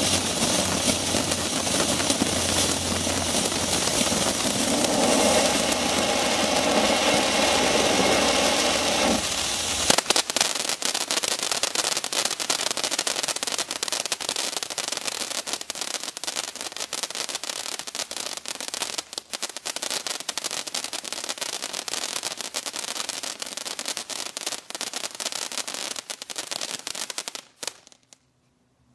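Dominator Hot Lips firework fountain spraying sparks: a steady hissing rush for about ten seconds, then dense crackling that cuts off abruptly as the fountain burns out near the end.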